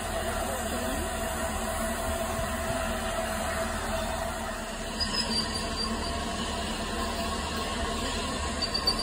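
Steam-hauled train behind the LNER A3 locomotive Flying Scotsman rolling slowly past, a steady rumble of wheels on the rails, with faint high squeals from about halfway through.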